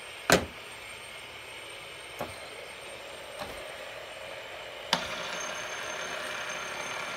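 Several fidget spinners spinning with a steady faint whir, and a sharp click about a third of a second in, then a few lighter clicks. From about five seconds in the whir grows a little louder and a thin high whine joins it.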